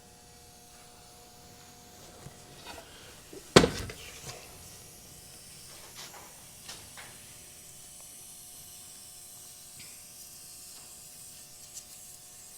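One loud, sharp knock about three and a half seconds in, with a few lighter clicks and clinks of hand tools and parts during a tractor PTO teardown.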